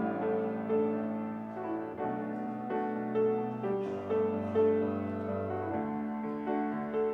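Slow instrumental keyboard music, held notes and chords changing every second or so.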